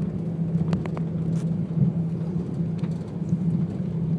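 Steady hum and rumble inside the cabin of an Airbus A340 taxiing on its engines at low thrust, with a few faint clicks about a second in.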